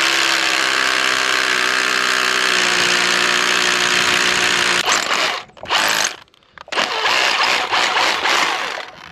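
Milwaukee cordless rotary hammer drilling into concrete, running steadily at one pitch. It stops about five and a half seconds in, gives a short burst, pauses again, then drills on until just before the end.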